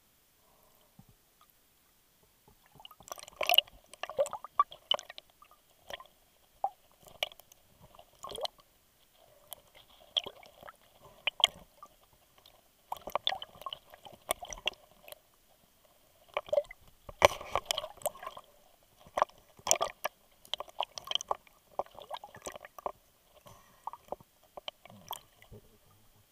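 Underwater clicks, knocks and sloshing as a speared monkfish is handled on the spear line, in irregular bursts with short quiet gaps between them.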